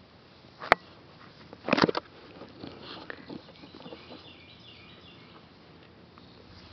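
English bulldog sniffing, with a short burst of sniffs about two seconds in and fainter ones after. A single sharp click comes just before the sniffs.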